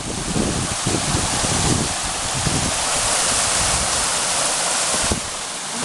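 Rushing runoff water pouring through an eroded roadside gully, a steady hiss, with wind buffeting the microphone in the first few seconds.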